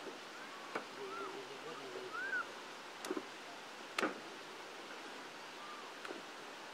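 A few sharp knocks and taps, the loudest about four seconds in, as raw mutton pieces are handled and set down on a corrugated metal sheet beside a wooden chopping board, over faint distant voices.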